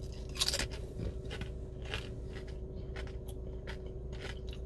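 Bite into and chewing of a tortilla chip loaded with dip: irregular crisp crunches, the loudest cluster about half a second in, over a steady low hum.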